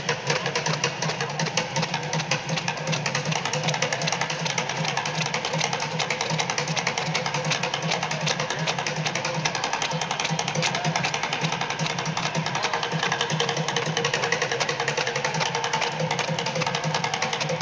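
Drums played in a fast, unbroken stream of strokes, many a second.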